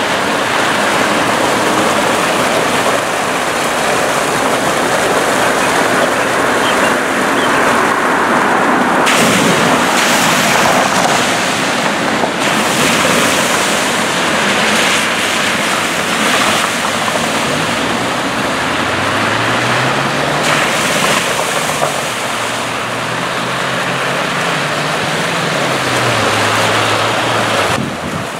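Water from a broken water main gushing and bubbling up through the road surface, a steady rushing. Partway through, a car drives through the flooded street, its tyres splashing. Later an engine note rises and falls as a vehicle passes.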